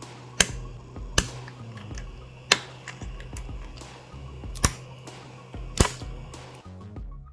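A 3D-printed articulated plastic lizard is pried off the printer's build plate, giving about five sharp snaps and clicks at uneven intervals as it pops loose from the bed, over a steady low hum.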